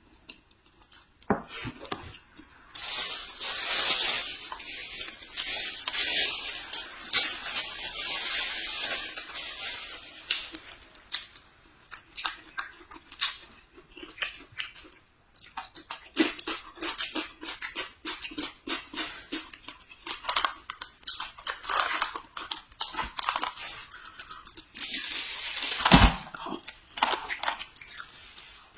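Close-miked eating: a person biting and chewing food, with many small wet clicks and crunches and stretches of rustling noise. There is one louder bump near the end.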